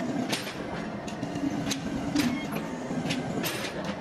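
Workshop machinery running with a steady hum, overlaid by irregular sharp metallic clicks or knocks, about two a second.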